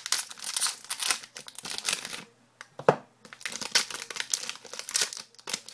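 Plastic hockey card pack wrapper crinkling and tearing as it is ripped open by hand, in quick crackly bursts, with one sharp knock about three seconds in.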